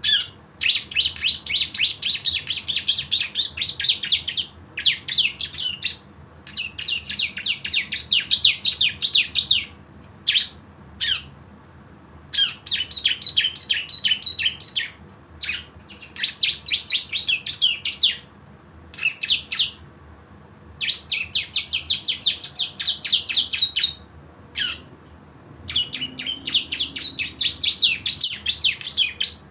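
Ciblek (bar-winged prinia) singing its 'ngebren' song: runs of rapid, evenly repeated high notes, each lasting one to three seconds, separated by short pauses and occasional single notes.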